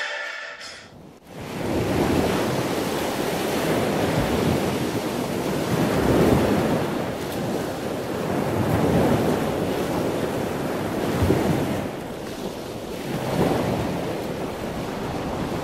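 A steady rushing noise like wind and surf, swelling and fading every few seconds. A music cue dies away in the first second.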